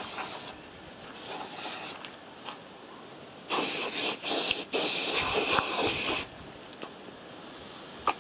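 Trim-restorer spray hissing in bursts: a short, fainter one about a second in, then two longer, louder sprays in the middle.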